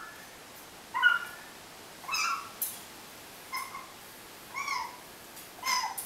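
African grey parrot making short squeaky calls, about one a second, each a brief bending note, with a sharp click partway through.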